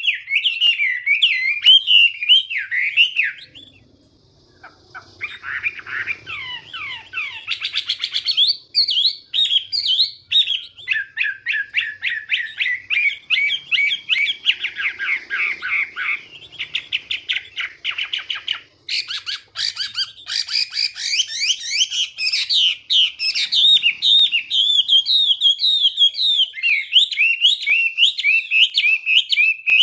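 Chinese hwamei singing a long, varied song of rapid whistled phrases, slurs and trills, with a pause of about a second a few seconds in.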